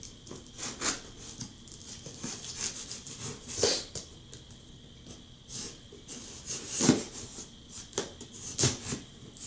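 Scissors cutting and scraping through clear packing tape on a cardboard box, an irregular series of short crackling snips and rasps, about half a dozen of them louder.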